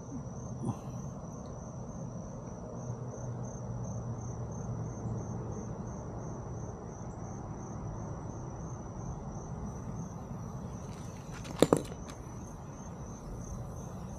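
Crickets chirping steadily, a high, evenly pulsed trill over a low background hum. Two sharp clicks come close together near the end.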